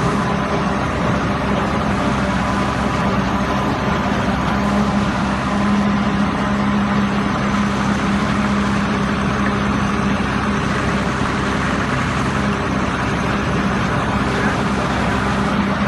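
Engine of a cement pile driver running steadily, a continuous even drone with no hammer blows.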